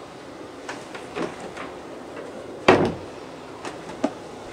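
Light knocks and one louder wooden thump about two and a half seconds in, typical of a cupboard door being shut, with a couple of faint clicks after.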